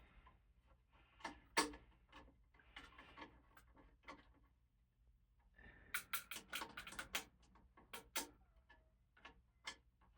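Small sharp clicks and knocks from handling ceiling fan parts and screws while fitting the blades, with a quick cluster of clicks about six seconds in.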